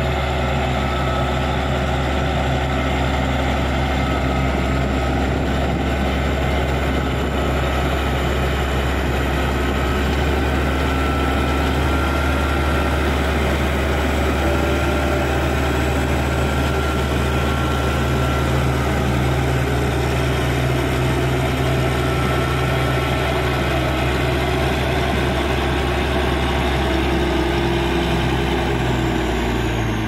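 Caterpillar D6G crawler bulldozer's diesel engine running steadily as the blade pushes wet soil.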